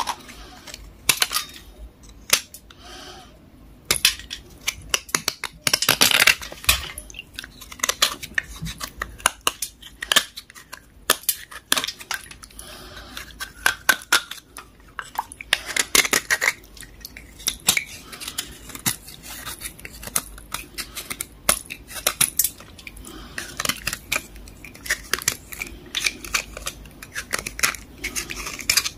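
Kitchen knife blade scraping the softened outer layer off a water-soaked grey block: a run of irregular gritty scrapes and crunchy clicks, some strokes sharper and louder than others.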